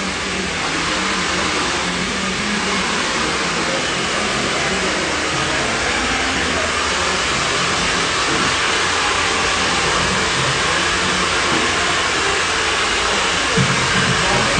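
Steady, even hiss of an electric blower running, with a faint low hum beneath.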